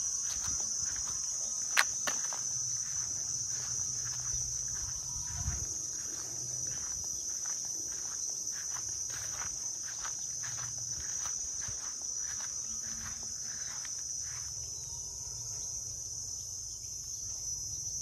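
Steady, high-pitched buzzing of an insect chorus in the orchard, with soft footsteps through grass and one sharp click about two seconds in.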